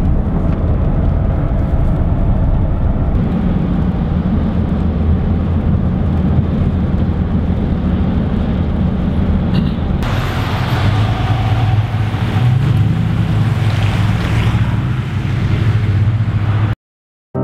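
Car driving on a rain-wet highway, heard from inside the cabin: a steady engine and road rumble with tyre hiss from the wet pavement. The hiss grows louder about ten seconds in, and the sound cuts off abruptly near the end.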